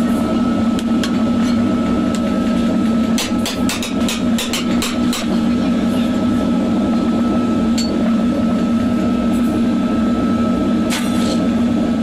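A steady mechanical drone of workshop machinery with a constant low hum, and over it a quick run of light metallic clicks about three to five seconds in and another short clatter near the end, as thin metal rods knock together while being handled.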